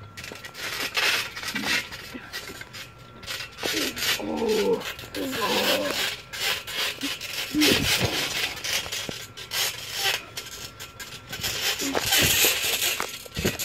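Two people wrestling on a trampoline mat: irregular scuffs, rustles and bounces, with heavier thumps of a body landing on the mat about eight seconds in and again near the end. Brief grunts or shouts about four to six seconds in.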